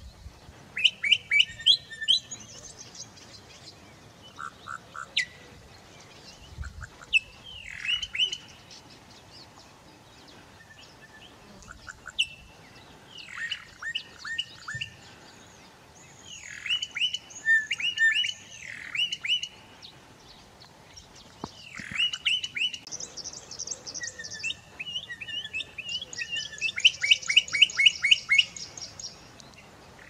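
Bokmakierie singing: phrases of quick, repeated ringing notes with short pauses between them, ending in a fast run of notes near the end.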